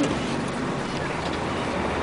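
Dump truck's diesel engine running out of sight, a steady low hum.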